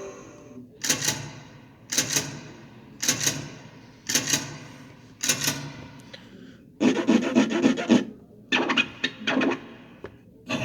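Scratchy rubbing, rasping sound effect: five short strokes about a second apart, then a longer rasp and two more short strokes near the end.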